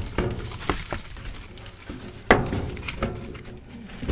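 Handling noise of a new furnace filter being fitted into the furnace's filter slot: light rustling and small clicks, with one sharp knock a little over two seconds in.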